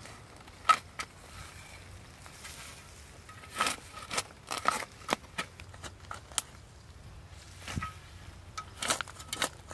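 A metal spade cutting into grassy, root-filled soil, with irregular crunching and scraping strokes as it slices turf and turns earth over. One sharp stroke comes early on, and the strokes come in quick clusters midway and near the end.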